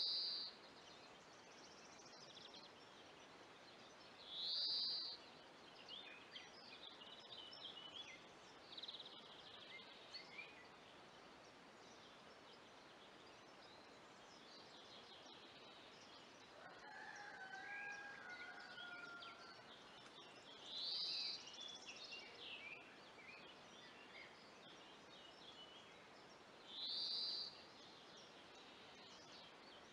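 Wild songbirds calling: a short bright call repeated every few seconds, with scattered chirps between. A rooster crows once, faint and lower, a little past the middle.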